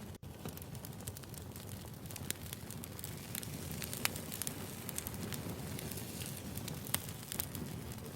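Wood fire crackling, with sharp irregular pops and snaps over a low steady rumble of the burning logs. A split-second dropout comes just after the start.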